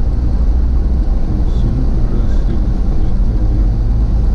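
Toyota Land Cruiser driving on an off-road track: a steady, loud, low rumble of engine and tyres.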